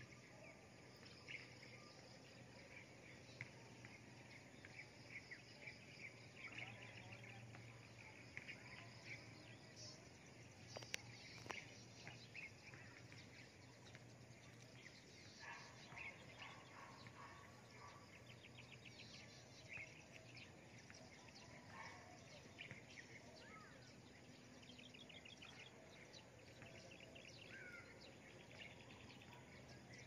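Faint chirps and trills of several birds, scattered throughout over a low steady hum, with one sharp click about eleven seconds in.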